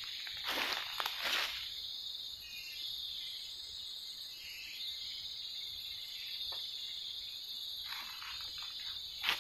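Steady high-pitched drone of forest insects. A few short scuffs or rustles come in the first second or two and again near the end, with a sharp knock just before it ends.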